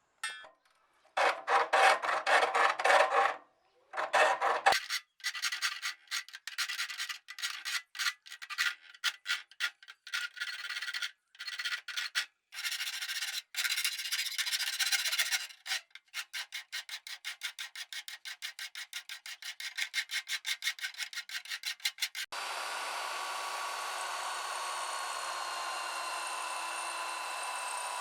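Hand filing or scraping, a rasping tool drawn back and forth in strokes that quicken to several a second. About three-quarters of the way through, a small electric power tool starts and runs steadily with a faint whine.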